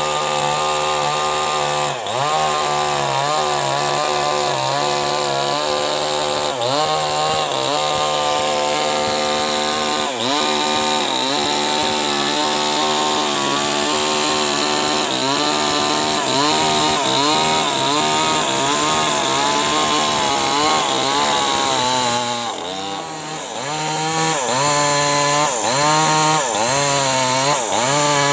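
Maestro CS6500L two-stroke chainsaw running at high revs while ripping an acacia log lengthwise. Its engine pitch wavers as the chain bites in, and dips briefly about 23 seconds in. After that it rises and falls about twice a second.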